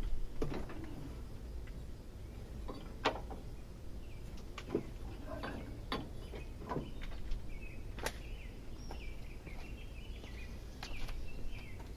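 Scattered sharp clicks and knocks of a mower deck's belt tensioner and its metal parts being handled as an old deck belt stuck between the tensioner and its springs is worked free.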